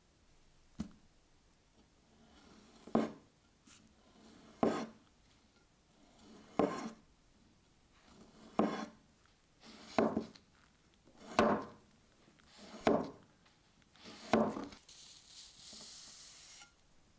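A sharp kitchen knife slicing a grape into thin rounds on a wooden board: about eight strokes, roughly one every one and a half seconds, each a short slicing swish ending in a crisp knock of the blade on the wood. A light tap comes about a second in, and a softer scraping hiss near the end.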